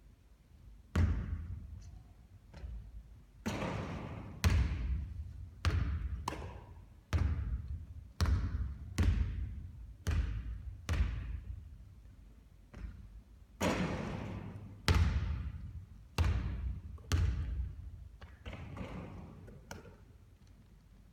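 Basketball thumping on a hard court over and over, about once a second at an uneven pace, each hit trailing off in a hall echo.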